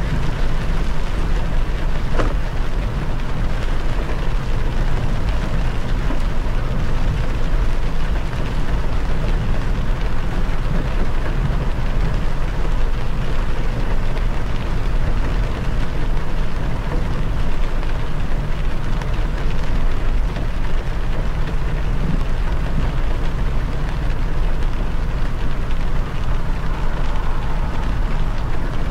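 Car driving on a rain-soaked expressway: steady tyre and road noise on the wet surface with rain, heaviest in the low rumble of the car.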